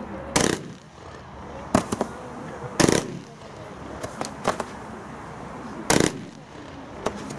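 Firework battery (cake) firing: a string of sharp bangs from its shots at uneven gaps of about a second, about six in all, the loudest near three seconds in.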